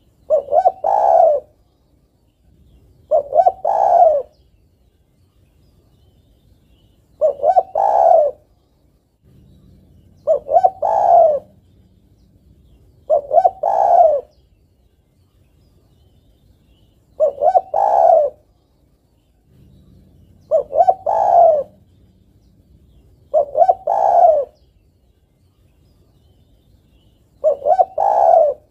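Female spotted dove cooing to call a male: nine phrases, each a couple of quick notes running into a longer coo, repeated every three to four seconds.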